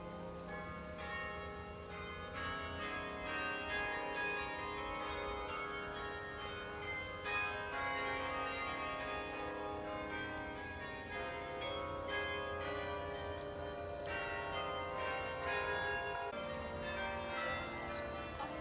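A tower carillon playing a tune: many struck bronze bells ring on and overlap as the melody moves from note to note.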